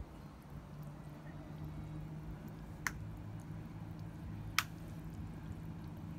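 Two sharp water drips about a second and a half apart in a small styrofoam biotope tank, over a steady low hum.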